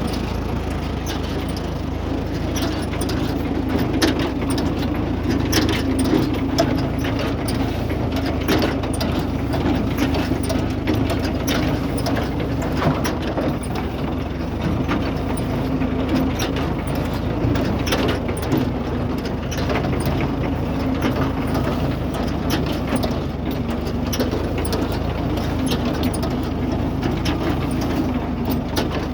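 John Deere 116W hay baler running: a steady engine drone under repeated irregular clanks and clicks from the baler's mechanism.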